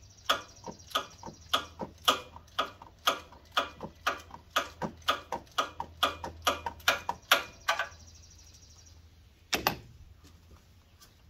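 Ratchet wrench clicking steadily, about three clicks a second, as it turns an 8 mm hex socket on a coolant plug in an LS engine. The clicking stops about eight seconds in, and a single louder clack follows about a second and a half later.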